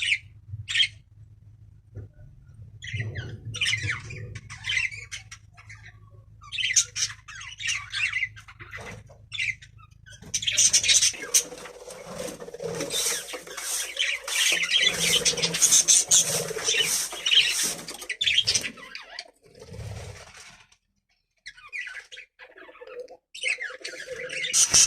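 Pet budgerigars chirping and squawking in short bursts, with a denser, louder stretch of calls in the middle and a low hum under the first half.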